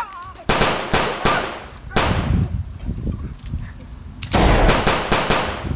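Gunfire sound effects: a few single rifle shots in the first two seconds, then a rapid burst of machine-gun fire about four seconds in.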